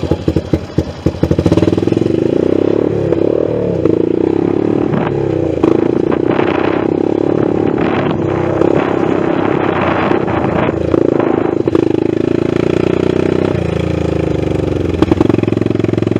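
ATV (four-wheeler) engine running under throttle while riding a dirt trail, heard from on the machine. Its pitch drops and climbs again several times as the throttle changes. A flurry of rattling knocks comes in the first second and a half.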